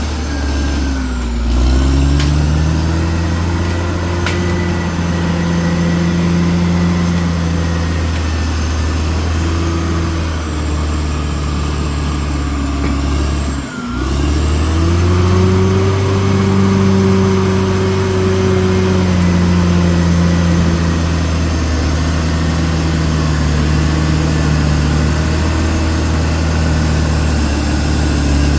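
CAT D6R XL bulldozer's diesel engine running steadily under working load. Its pitch sags briefly about a second and a half in, then picks up again, and the sound cuts out for an instant about halfway through.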